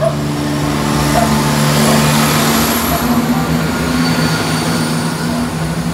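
A Class 170 Turbostar diesel multiple unit passing close by at low speed, its underfloor diesel engines humming steadily over the rumble of the wheels. The engine note shifts slightly in pitch about halfway through.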